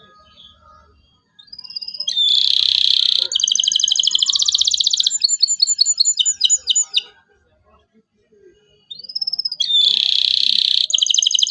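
Domestic canary singing loudly in two song phrases, each opening with a rising whistle, then a fast buzzing trill, rapid repeated notes and a run of separate chirps; the second phrase starts about 9 seconds in.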